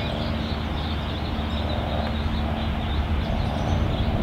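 Steady outdoor background noise: a low rumble with a faint steady hum through it, and no distinct event.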